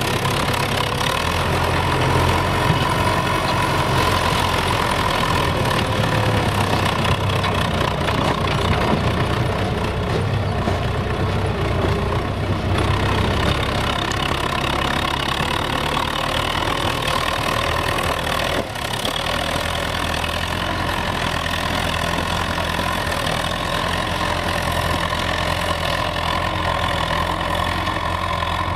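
Belarus MTZ-82 tractor's four-cylinder diesel engine running steadily under load as it pulls a mounted plough through frozen ground. The sound dips briefly a little past halfway, then carries on slightly quieter.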